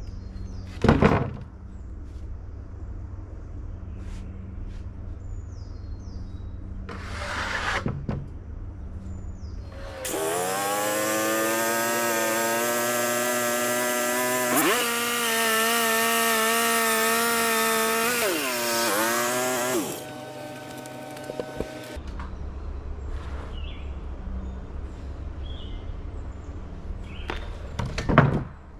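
Band sawmill engine idling, then revving up about ten seconds in and running hard for about ten seconds with a loud hiss as the band saw blade cuts through the cedar log, dipping briefly twice under load, then dropping back to idle. A sharp knock comes near the start and another near the end.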